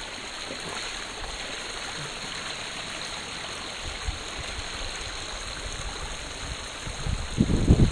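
Shallow creek water rippling and splashing over rocks in a steady rush. Near the end, wind buffets the microphone with a loud low rumble.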